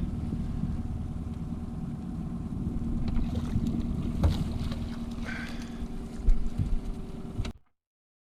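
Boat motor running steadily at trolling speed, with a few knocks and thumps in the boat, the loudest about six seconds in. The sound cuts off suddenly near the end.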